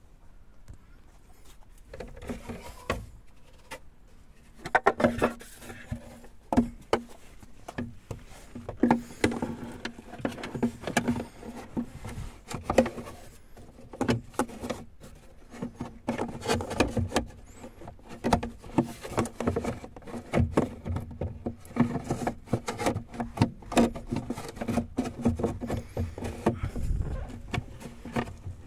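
Irregular clicks and knocks, a few of them louder, over a faint low hum that comes and goes.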